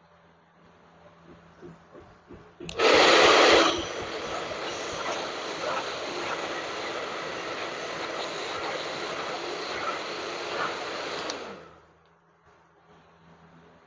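Hand-held hair dryer switched on about three seconds in with a loud rush for the first second, then blowing steadily for about eight seconds before switching off.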